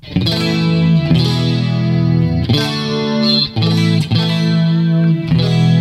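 Electric guitar, a Yamaha Pacifica through a Line 6 Helix, on a clean tone with chorus: chords are struck and left to ring, a new chord about every second.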